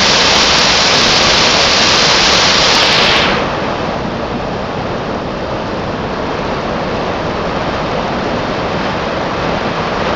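Waterfall, falling water rushing steadily and loudly. About three seconds in the bright hiss drops away and the sound turns duller and a little quieter.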